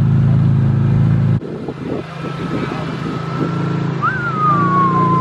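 BMW E46 M3's S54 straight-six running at low revs as the car rolls slowly. The hum drops sharply about a second and a half in, then a few light knocks follow. Near the end a thin high tone jumps up and slides down.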